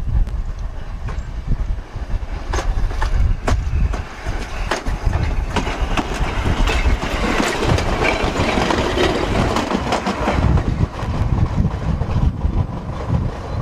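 A train running on the rails: a low rumble with scattered sharp clicks from the wheels, and a louder rushing noise that builds about seven seconds in and eases off by about eleven.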